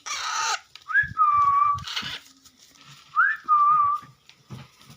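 Two short whistled notes, each sliding up and then held level, with raspy hissing calls before and between them, likely hungry baby Alexandrine parrots begging.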